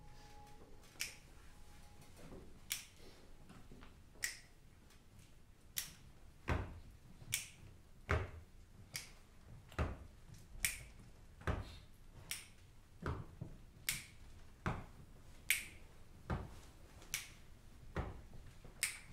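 Finger snaps keeping a slow, steady beat, one about every second and a half. About six seconds in, low thumps join halfway between the snaps, making an even snap-thump pulse.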